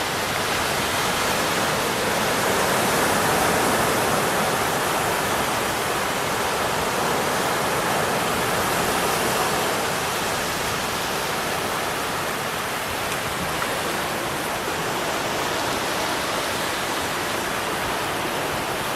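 Steady rushing of the Danube's floodwater, an even, loud roar of fast-moving water.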